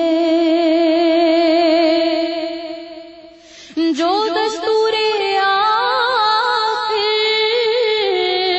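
A voice singing a naat with long held notes and a wavering vibrato. The voice trails off about three seconds in, comes back just before four seconds, and climbs and falls in steps.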